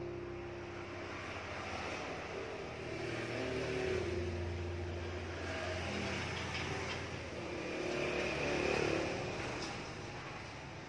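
Engine noise of a road vehicle, a low rumble that swells and fades, loudest about four seconds in and again near nine seconds.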